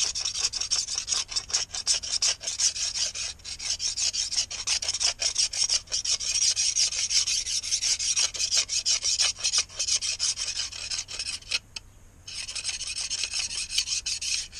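A knife blade scraped in quick strokes along a thin painted strip, rasping off old paint, with a short pause a little before the end.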